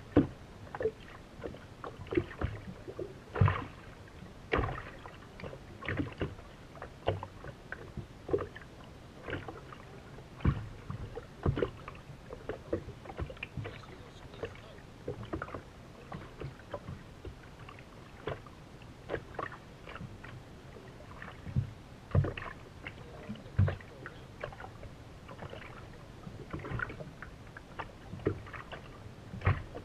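Water slapping against the hull of a racing powerboat, irregular sharp knocks a second or two apart.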